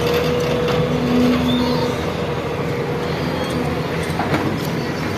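Excavator engine running steadily, with a steady whine over the rumble.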